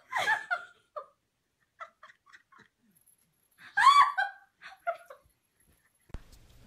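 A person laughing in high-pitched giggles, in two main bursts: one at the start and a louder one about four seconds in.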